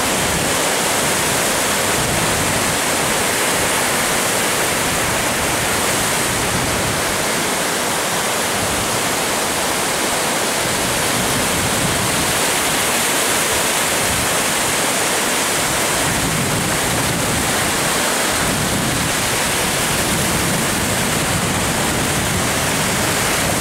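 Ocean surf breaking and washing in, an even, steady rush of water noise.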